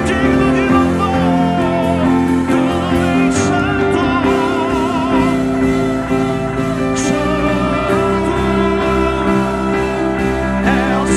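Worship music: a singer holding long notes with vibrato over sustained instrumental chords.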